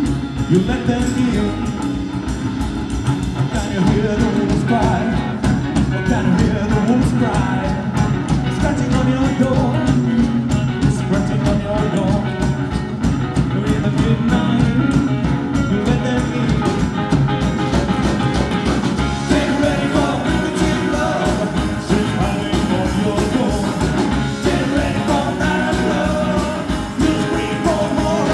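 Live rock-and-roll band playing a song: upright bass, electric and acoustic guitars and a drum kit keeping a steady beat, with singing.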